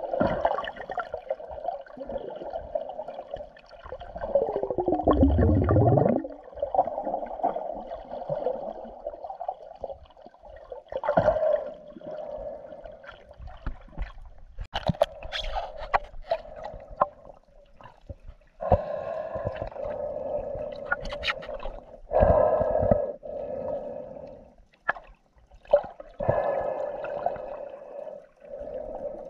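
Muffled underwater noise picked up by an action camera in a waterproof housing: gurgling and swelling water sounds with scattered sharp clicks and knocks, and a low sound falling in pitch about five seconds in.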